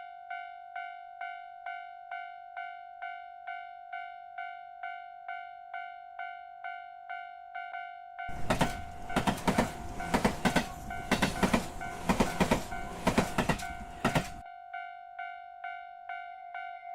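Japanese railroad crossing bell ringing its steady kan-kan, about two strikes a second. About eight seconds in a train passes for some six seconds, its wheels clacking loudly over the bell, then the bell rings on alone.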